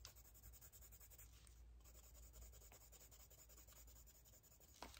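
Faint, rapid scratching of a Derwent coloured drawing pencil shading back and forth on sketchbook paper as a swatch is filled in, with a small tick near the end.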